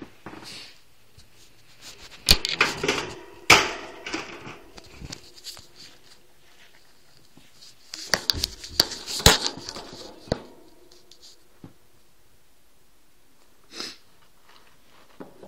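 Sharp knocks and clatter with rustling at a wire-and-plastic hamster cage, in two bursts with a pause between, and a short rustle near the end.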